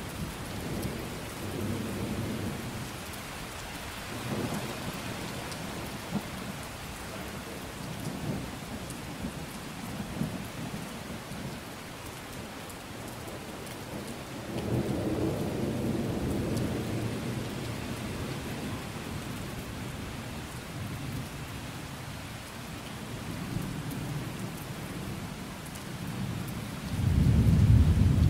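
Steady rain falling through a thunderstorm, with low rolls of thunder that swell and fade several times. The loudest rumble comes in near the end.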